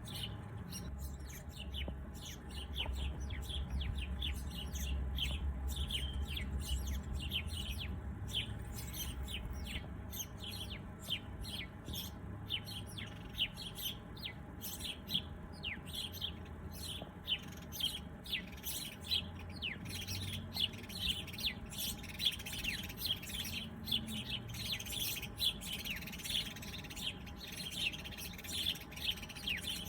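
Many small songbirds chirping at once: a dense stream of quick, high, downward-sweeping chirps, thickening into a busier warbling chorus in the last few seconds.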